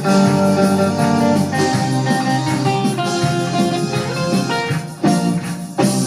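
Band music with guitars to the fore, playing without singing; the playing drops away briefly about five seconds in.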